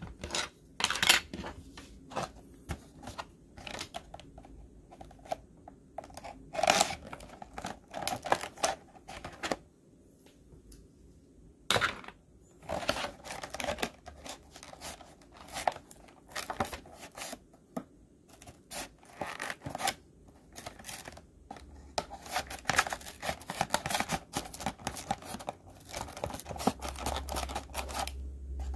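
A plastic blister pack on a cardboard card being handled and pried open: irregular crinkling, crackling and tearing, with sharp plastic clicks, busier near the end.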